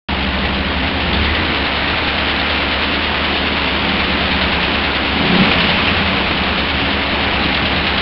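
Steady, loud rumble and hiss with a low hum underneath, cutting in abruptly: the Firebird's car noise, most likely its engine running or the car rolling, heard through a wind-buffeted microphone.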